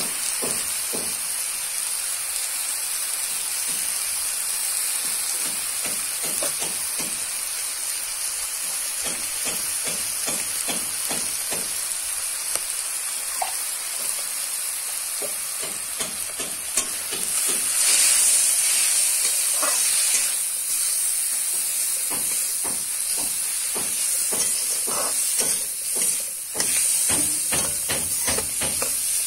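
Mutton pieces sizzling as they fry in a metal wok, with a metal spatula scraping and knocking against the pan in many short strokes as the meat and turmeric are stirred. The sizzle swells for a few seconds past the middle.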